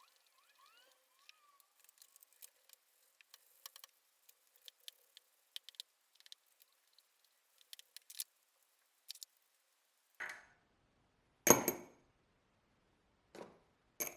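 Light scattered clicks and ticks of small hard objects being handled, followed by four louder separate knocks, the loudest about eleven and a half seconds in.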